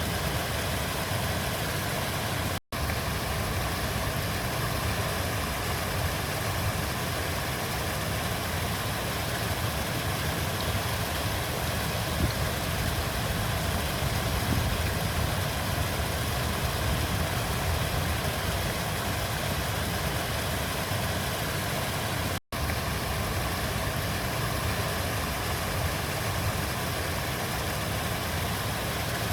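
River water flowing in a steady, even rush with a deep low rumble. The sound drops out to silence for an instant twice, about three seconds in and again about two-thirds of the way through.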